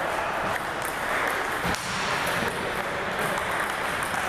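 Table tennis hall ambience: a steady background murmur with a few sharp clicks of ping-pong balls bouncing, spaced irregularly.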